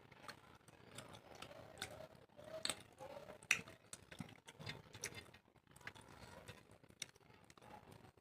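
Close-miked eating sounds: a person chewing, with irregular small wet clicks and smacks of the mouth. The sharpest click comes about three and a half seconds in.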